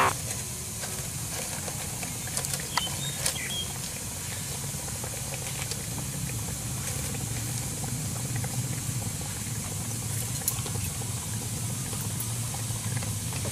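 Steady outdoor background hiss with a low hum, broken by a few light clicks and rustles from hands handling leaves and plastic bags.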